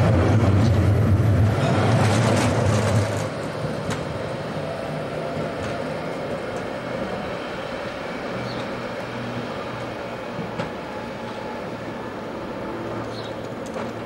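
A tram passing close by, its running gear giving a loud, steady low hum that drops away suddenly about three seconds in. After that there is quieter, even street noise while another tram approaches in the distance.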